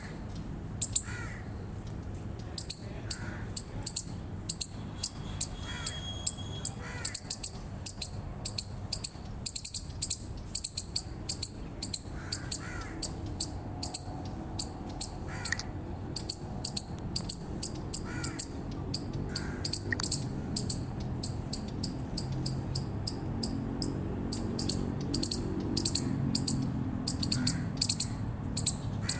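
Eastern chipmunk giving its repeated chip call: short, sharp, high-pitched chirps at about two to three a second, kept up without a break.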